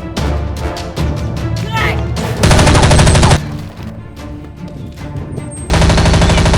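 Two bursts of rapid automatic gunfire, each about a second long, the second near the end, over background music with a steady beat. The gunfire is an edited-in sound effect of the kind laid over Nerf blaster action.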